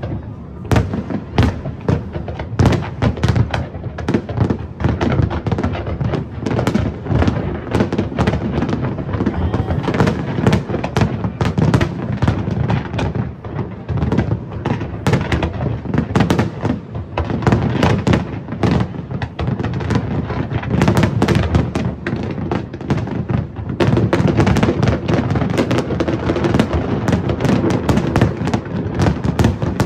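Large fireworks display: many aerial shells bursting in a rapid, continuous barrage of overlapping bangs.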